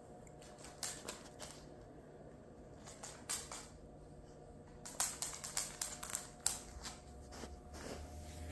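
A wirehaired pointing griffon moving about on a hard floor: irregular light clicks and ticks, a few at first, then a quick busy run of them about halfway through.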